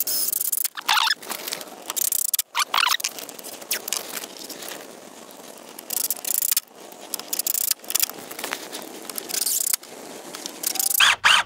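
Cordless DeWalt driver running in a series of short bursts, driving screws into the plastic brackets that hold the top rail of a vinyl railing.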